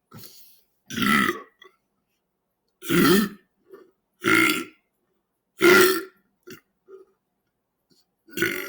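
A man burping a string of short, loud belches, which he calls "squeegee burps", brought up by a carbonated lemon-lime sparkling water. A faint one comes first, then four about every second and a half, and another starts just before the end.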